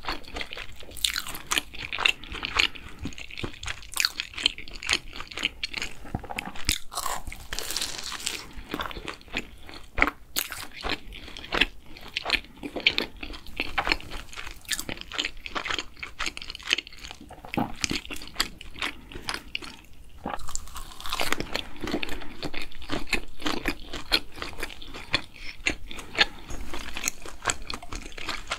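Close-miked chewing and crunching of a savoury doughnut topped with potato, chicken and jalapeño, a steady run of crisp, irregular crackles.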